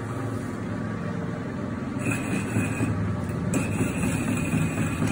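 Manual metal lathe running under cut, a steady mechanical hum from its spindle drive and gears as the tool turns a large steel workpiece into curled chips. A thin high whine joins about two seconds in, breaks off briefly, then returns.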